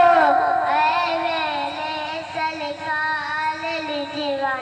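A young boy singing a manqabat (Sufi devotional song praising a saint) solo into a microphone. He holds long, wavering notes that slide slowly down in pitch.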